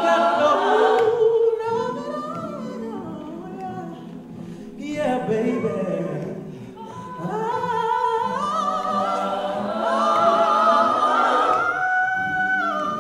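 Music: a song with singing, the voice holding long notes that glide up and down.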